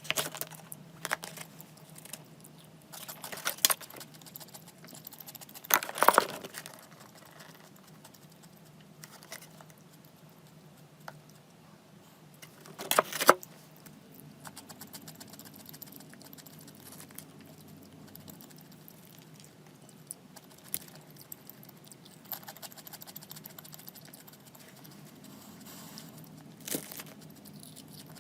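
Scattered clicks, taps and rustles of small objects being handled, with louder clatters about 6 and 13 seconds in.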